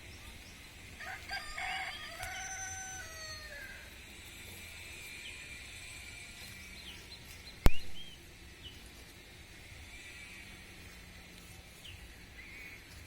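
A rooster crows once about a second in, the call falling away at its end. Small birds chirp faintly throughout, and a single sharp click comes just past halfway.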